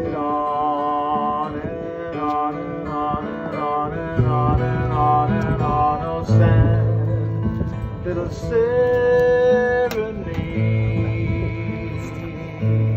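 Acoustic guitar playing an instrumental passage, with held melody notes that step from one pitch to the next over long low bass notes.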